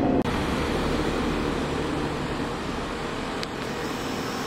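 Steady city street noise: a low, even hum of traffic, with a single faint click about three and a half seconds in.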